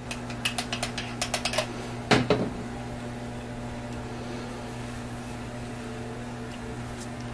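A quick run of light clicks from engine parts being handled at the bench, then a single knock about two seconds in. After that only a steady low hum.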